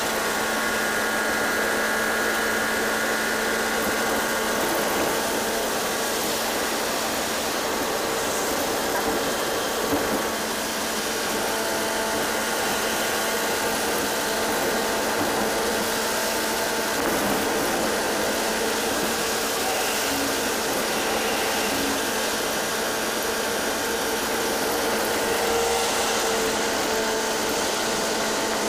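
Steady cabin noise inside a bus at highway speed: the engine's even drone mixed with a constant rush of wind and tyres on the road.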